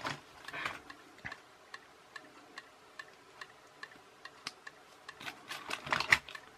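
Small metal and plastic handling noises as pliers grip a tiny coreless motor and push its armature out of the case. The scraping and clicking clusters come about half a second in and again near the end, where the loudest click falls about six seconds in. Under it runs a steady faint ticking, about two to three ticks a second.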